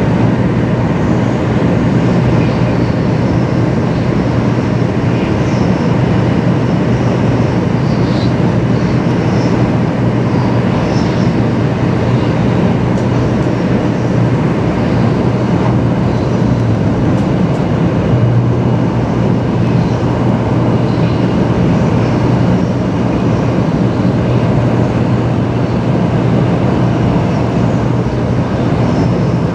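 Running noise of a Taiwan High Speed Rail Shinkansen-type train at speed, heard inside the passenger cabin: a steady rush with a low hum underneath that does not change.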